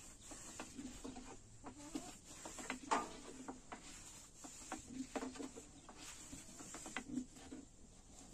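Hens clucking on and off, mixed with light clicks and taps of a long thin wooden rolling pin on a wooden board as flatbread dough is rolled out.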